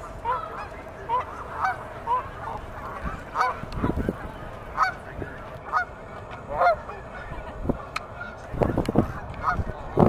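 A flock of geese honking, short calls following one another about twice a second, with low rumbles about four seconds in and again near the end.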